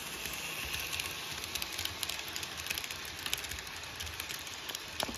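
N gauge model train running past on its track: a steady low rumble with rapid, irregular clicking and crackling from the wheels on the rails, and a sharper click near the end.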